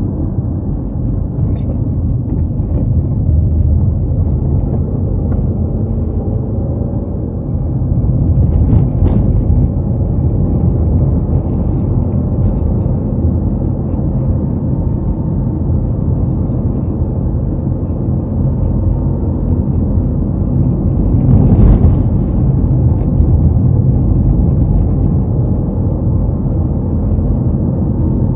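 A car driving along a road: a steady low rumble of engine and tyre noise. It briefly swells louder with a hiss twice, about nine seconds in and again about twenty-one seconds in.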